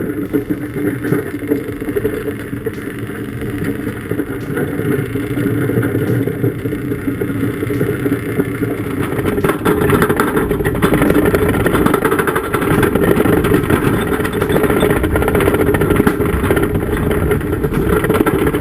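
A heavy motor vehicle's engine running continuously under load, growing louder about halfway through.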